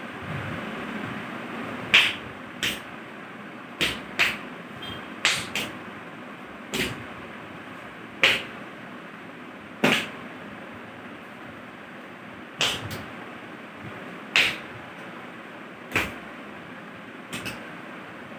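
About fifteen sharp slaps from children doing karate moves, coming at irregular intervals, some in quick pairs.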